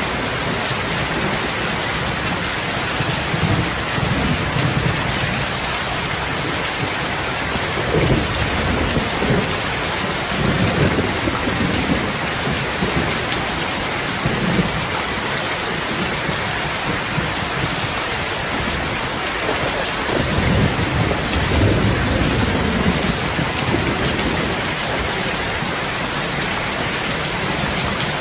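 Steady heavy rain, a dense even hiss, with low rolling rumbles of thunder that swell several times, strongest about twenty seconds in.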